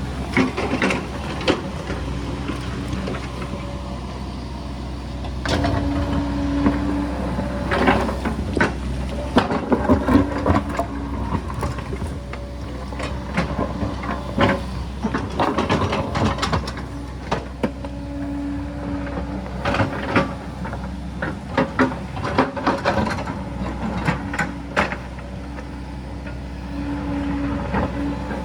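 Sany excavator's diesel engine running steadily while the bucket knocks, scrapes and clatters against rock and soil in many sharp hits. A droning tone under load comes in four times, for a second or two each time.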